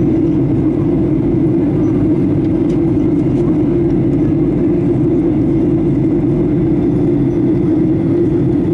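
Steady cabin drone of a Boeing 737-800 in descent, heard inside the cabin: a constant rush of engine and airflow noise with a strong low hum.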